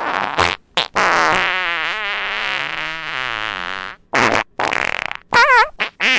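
Human flatulence: a long fart with a pitch that wobbles up and down, then a string of short farts near the end.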